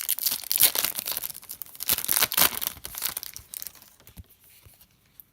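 Foil trading card pack wrapper being torn open and crinkled, a dense crackling rustle that dies away about three and a half seconds in.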